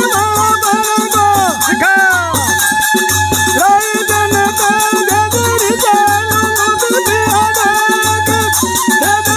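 Algoza, the Rajasthani double flute, playing a folk melody full of sliding, bending notes, over a steady dholak beat about once a second and the fast clinking of small hand cymbals.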